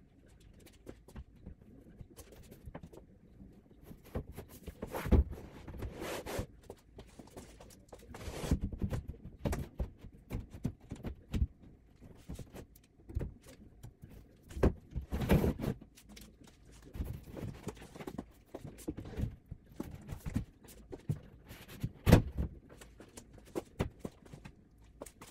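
Flat-pack wardrobe panels being handled: a thin fibreboard panel is slid and laid across a particleboard cabinet, with scattered scrapes, knocks and a few louder thumps.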